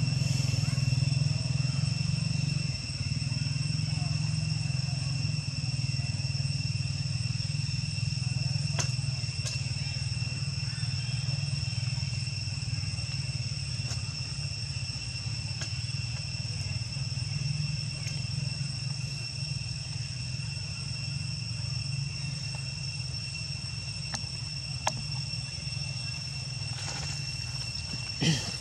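Steady, high-pitched insect drone holding one constant pitch, over a low steady hum. A few faint clicks, and a brief sharp sound near the end.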